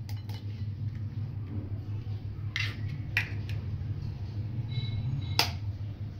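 Eggs being cracked by tapping them with the edge of a steel spoon over a glass bowl: a few sharp clicks, the loudest near the end. A steady low hum runs underneath.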